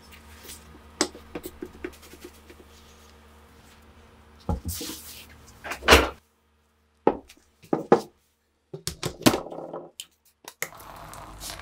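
Clicks, knocks and thuds of a rusty old submachine gun being handled, laid on a wooden table and clamped in a bench vise, the loudest knock about six seconds in, with a low steady hum underneath.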